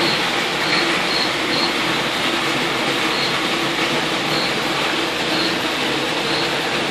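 Water pouring into a koi-pond radial flow separator at roughly 2,400 gallons an hour: a steady, even rushing and splashing.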